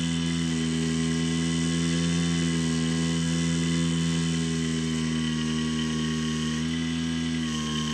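Skywalker X7 flying wing's electric motor and propeller running at steady throttle, a steady whine whose pitch steps slightly twice near the end as the throttle changes.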